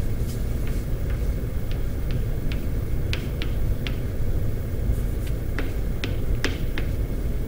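Chalk ticking and scratching on a chalkboard as letters are written: a series of short sharp clicks, denser and louder in the second half. A steady low rumble runs underneath.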